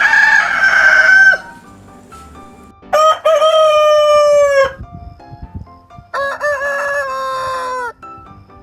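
Rooster crowing three times in a row, each crow lasting about a second and a half, the first the loudest.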